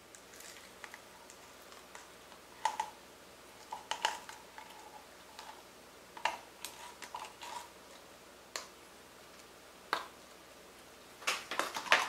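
Sticky slime clicking and squelching as clear slime is scooped from a plastic cup with a plastic spoon onto a puddle of blue slime. Irregular sharp clicks and short squishes come in scattered groups, with the loudest cluster near the end.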